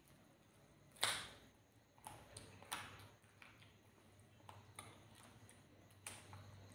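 Faint eating sounds: wet chewing clicks and lip smacks from someone eating rice and chicken by hand, the sharpest smack about a second in, then softer scattered clicks.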